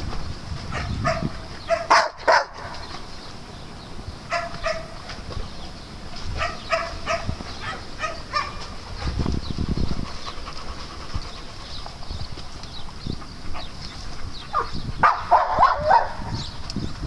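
Dogs barking and yipping in short bursts during play. The loudest barks come about two seconds in, and another flurry comes near the end.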